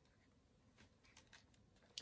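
Near silence: room tone, with a few faint soft clicks and a brief tick near the end from plastic FPV goggles being handled and fitted to the face.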